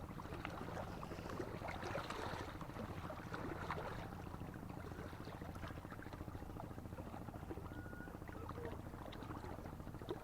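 Small waves lapping and splashing at the water's edge, with many little crackles and trickles, over a steady low engine hum.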